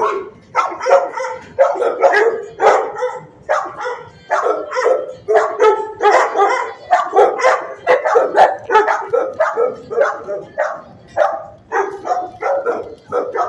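Shelter dogs barking in their kennels, a loud, unbroken run of sharp barks about two a second.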